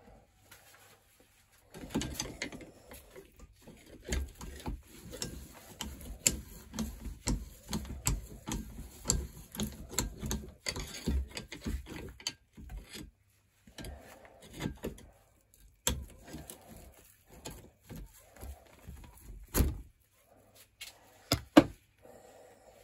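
Irregular metal-on-metal scraping and clicking as a screwdriver works at the old, paint-covered clamp of a vintage bicycle saddle held in a bench vice, busy for the first half, then a few separate sharp knocks near the end.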